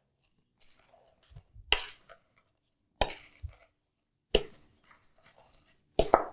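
A wooden spoon stirring dry, crumbly ground cookie and nut mixture in a glass mixing bowl, scraping through it, with four sharp knocks spaced a second or so apart as the spoon strikes the bowl.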